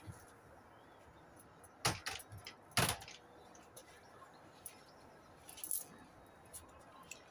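A few sharp knocks and clicks over a quiet outdoor background, the two loudest about a second apart near the start and fainter ones later on. They come from someone moving about and handling things at a table.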